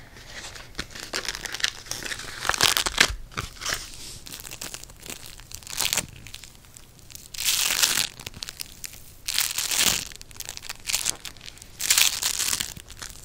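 Hands squeezing and tearing a crumbly yellow lump held close to the microphone. It comes as a series of short crackly crunches and rustles, one every second or two.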